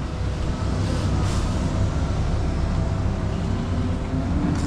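Large diesel engine running steadily with a low drone.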